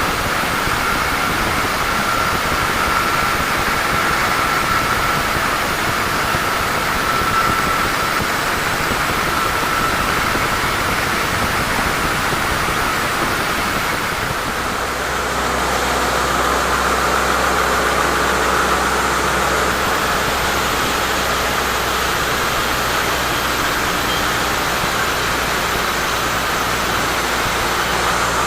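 Sawmill machinery running steadily: a loud even noise with a faint high whine, changing about halfway through to a steady low engine hum, like an engine idling.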